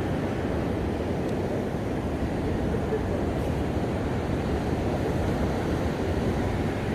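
Steady low roar of ocean surf breaking on a sandy beach.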